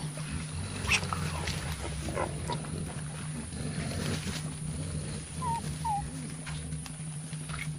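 Mountain gorillas making low grunting rumbles, with rustling and crackling of leafy vegetation, and two short high chirps a little after the middle.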